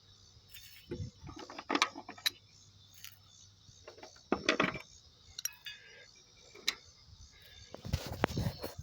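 Irregular metallic clinks and rattles of hand tools and loose bolts as a push mower's engine is unbolted from the deck, with a louder clatter near the end.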